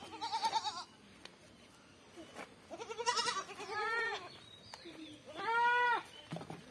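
Beetal goat kids bleating: three high calls, the first two quavering and the last steadier.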